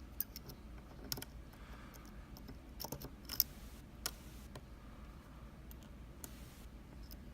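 Small metallic clicks and ticks of a dimple pick and tension tool working the pins of an Anzbe HS7 dimple lock, irregular and scattered, with a brief faint scrape or two.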